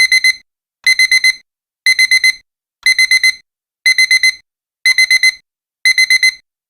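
Digital alarm-clock beeping: high electronic beeps in quick groups of four, one group every second, signalling that the countdown timer has run out.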